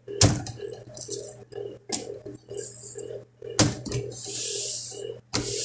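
Kitchen clatter of a knife and utensils while a salmon is filleted, with a few sharp knocks and a burst of hiss about four seconds in.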